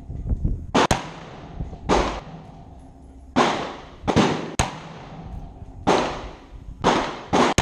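Bushmaster AR-15 in .223/5.56 with a Carlson Nitro Flash Enhancer on the muzzle, fired shot after shot: about eight or nine loud cracks at an uneven pace of roughly one a second, two of them in quick pairs, each followed by a short fading echo.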